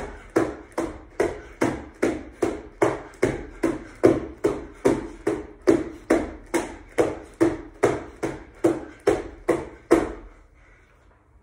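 Hands and feet striking a wooden floor in a fast, even rhythm during a bodyweight floor exercise, about two and a half thuds a second, stopping about ten seconds in as the set ends.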